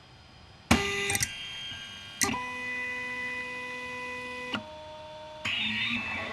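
Stepper motors of an Orion Delta 3D printer whining as the carriages move at the start of a print. Each move is a steady machine tone that jumps abruptly to a new pitch, starting about a second in. From about five and a half seconds the tones turn busier and warbling as the printing moves begin.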